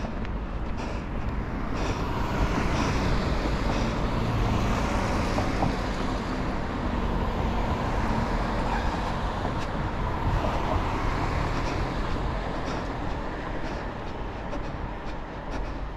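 Road traffic: cars driving past on a two-lane road, a steady tyre and engine noise that swells about two seconds in and eases off toward the end.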